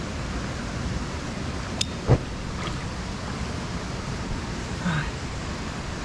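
Steady rush of a shallow stream running over stones. About two seconds in there is a sharp click and then a louder thump as the fuel-soaked fire is lit. A short grunt comes near the end.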